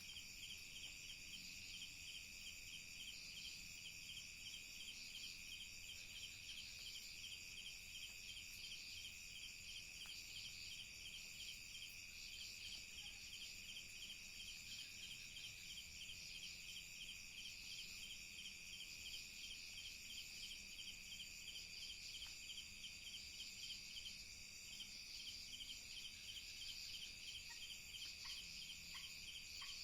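Faint night insect chorus, crickets and similar insects trilling steadily in several high pitches, the lowest with a fast, even pulse. A few faint short chirps near the end.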